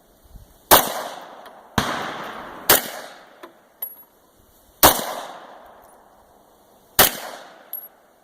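Five 9mm pistol shots fired one at a time at uneven intervals, each a sharp crack with a ringing tail that dies away. A few fainter sharp clicks fall between the shots.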